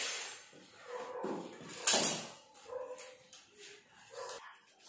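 Clacks and rattles of a folding multi-jointed tile angle ruler being handled and laid out on a tiled floor, the loudest sharp clack about two seconds in. Between them come a few short squeaky whines.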